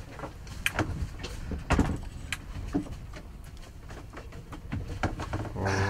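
Camera handling noise: scattered knocks and clicks as the camera is passed from hand to hand, over a steady low rumble.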